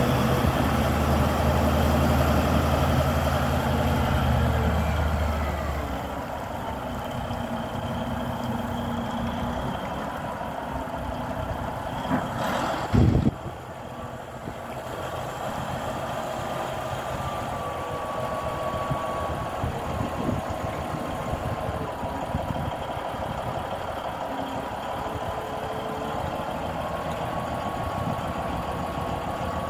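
Volvo A40E articulated dump truck's diesel engine running hard while the dump body is tipped, then dropping to a lower, steady speed about six seconds in with a thin whine over it. A single loud clunk comes about thirteen seconds in.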